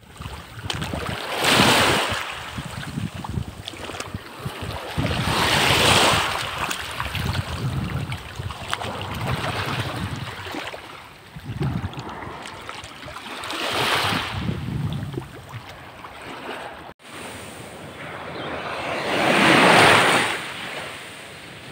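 Small waves washing in shallow water, with wind on the microphone, swelling and fading about four times.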